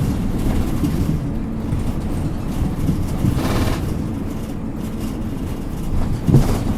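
Isuzu Erga Mio PA-LR234J1 city bus running, heard from inside the passenger cabin: a steady low drone of engine and road noise, with a short hiss about three and a half seconds in and a brief knock near the end.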